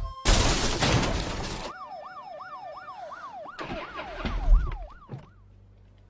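A loud crash of a car smashing down, followed by a police siren in fast up-and-down yelping sweeps, about three a second, with a heavy thump about four and a half seconds in, before the siren cuts off.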